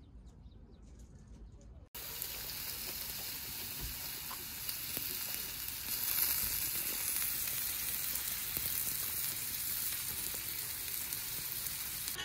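Pork belly and king oyster mushroom slices sizzling on a grill plate over a portable butane stove, a steady frying hiss that starts suddenly about two seconds in and grows a little louder partway through.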